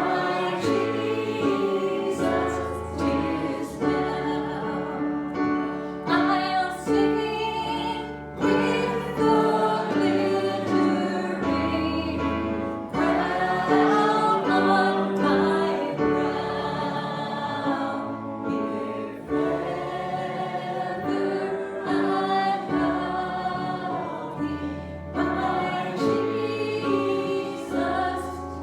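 Gospel hymn sung by a group of voices, with held low notes of accompaniment underneath.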